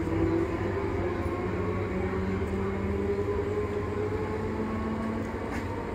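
Indian Railways EMU local electric train running away along the track: a continuous rumble with a steady low hum, slowly fading as it recedes.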